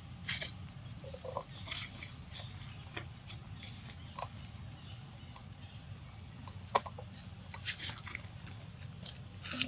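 Macaques eating close by: scattered short crunches and clicks of biting and chewing food, with one sharper click about seven seconds in, over a steady low hum.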